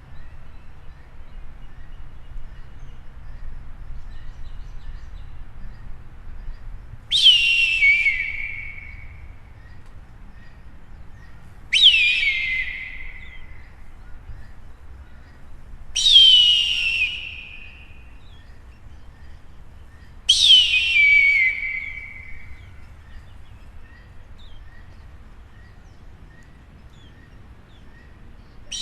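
Eagle screaming: four long, loud calls about four seconds apart, each starting high and sliding down in pitch, with a fifth starting right at the end.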